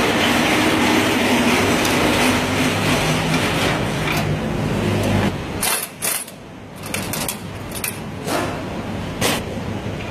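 Pneumatic impact wrench running continuously for about five seconds on the front suspension's steering knuckle, then stopping suddenly, followed by a few sharp metal clinks and knocks.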